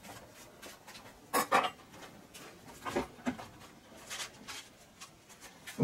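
A few scattered light knocks and clicks, with no engine running or cranking.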